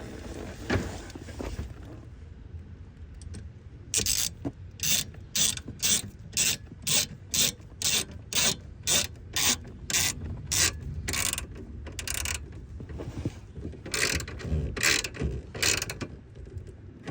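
Hand socket ratchet clicking as it drives 7mm screws in, in quick repeated strokes about two a second. The clicking starts about four seconds in, pauses briefly, then resumes for a few more strokes.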